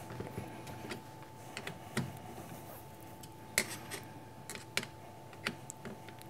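Scattered light clicks and taps, about half a dozen at irregular spacing, as a small metal stop is handled and set against a milling vise jaw, over a faint steady hum.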